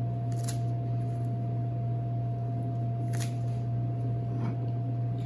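Steady low mechanical hum with a faint steady higher tone above it, as from kitchen machinery or ventilation, with three faint clicks of hands handling things at the work table.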